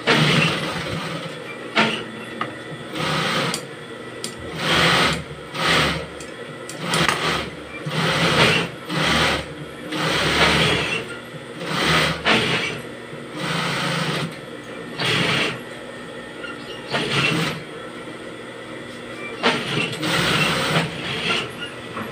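JUKI industrial sewing machine stitching in about a dozen short runs, starting and stopping as the fabric is fed through, with a steady motor hum in between.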